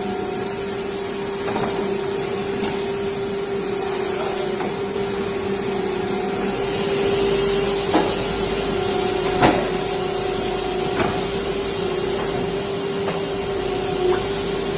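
CNC router with automatic tool changer running: a steady hum with a hiss of air over it, the hiss growing about halfway through, and a few sharp knocks, the loudest about nine and a half seconds in.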